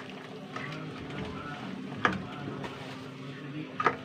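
Metal spoon clinking sharply against a stainless steel cooking pot twice, about two seconds in and near the end, over a steady low hum.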